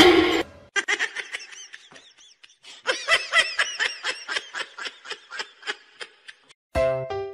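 A person laughing in a long run of quick giggling bursts, about four or five a second, which tail off near the end. The laughter follows a short, loud burst of noise at the very start.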